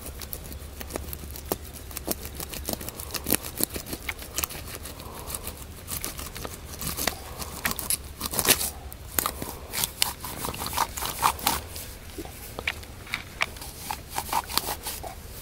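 Irregular crackling and scraping of dry leaves and dirt as a gloved hand handles a landed fish on the ground, thickest in the second half.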